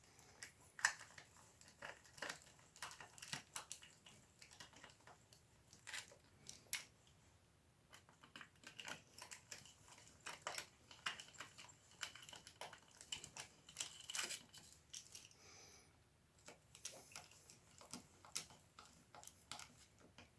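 Irregular light clicks and metallic taps of hand tools and bolts as the primary cover bolts are run in on an Ironhead Sportster, with a faint metallic ring in the middle.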